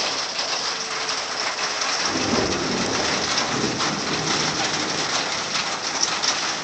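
Steady hiss of rain in a thunderstorm, with a low rumble of thunder starting about two seconds in and lasting a couple of seconds.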